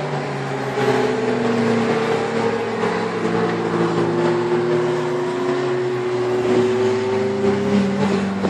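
Several sports cars, Ferraris among them, driving past one after another on a race circuit, their engines running at moderate revs. Several engine notes overlap, each slowly rising or falling in pitch as the cars go by.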